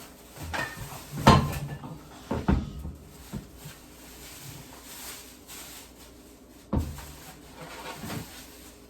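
Grocery packages being handled and set down: a few knocks and thuds, the loudest about a second in, another a moment later and one near the end.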